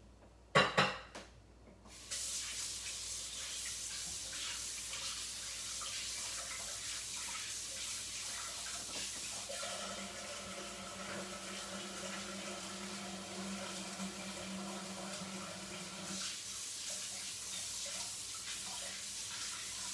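Kitchen tap running into a sink as hands are washed, the water coming on about two seconds in after a couple of knocks and running steadily. A steady hum sounds along with the water for several seconds in the middle.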